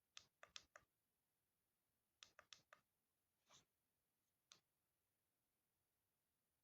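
Faint clicking: two quick runs of about four clicks each, some two seconds apart, then a softer brief sound and a single click.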